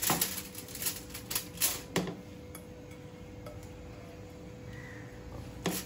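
Aluminium foil crinkling and crackling as marinated fish is tipped from a bowl onto it: a quick run of sharp crackles over the first two seconds, then a quieter stretch with a faint steady hum, and one more crackle near the end.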